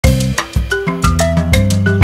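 Background music: a bouncy tune of short struck notes over a bass line.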